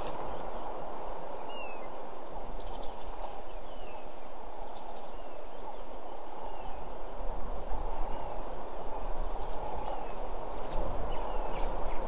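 A small bird calling in short, falling chirps about once a second over a steady outdoor hiss. A low rumble surges more often in the second half.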